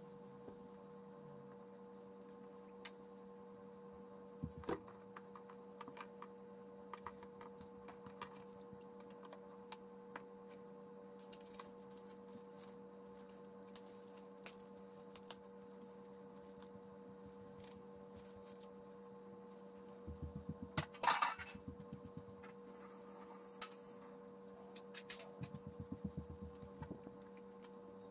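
A steady electrical hum under scattered small knocks and clicks as a wooden paper-making frame, a metal spoon and a packet of wildflower seeds are handled on a towel-covered table. A louder cluster of clatter and rustle comes about two-thirds of the way in, and a quick run of small rattles comes near the end.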